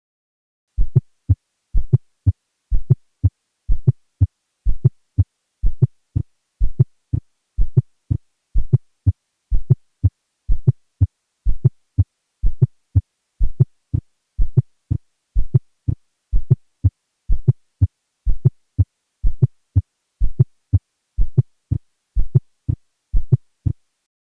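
Auscultation recording of a heartbeat with an S4 gallop: a steady run of low-pitched thumps, about one beat a second, with the fourth heart sound falling late in diastole just before S1. An S4 is always pathologic and is taken as the sign of the atria contracting into a stiff, non-compliant left ventricle, as in hypertension, LVH or ischemic cardiomyopathy.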